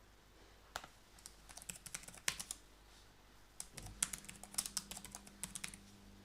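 Typing on a computer keyboard: light, quick key clicks in two short bursts, with a brief pause between them.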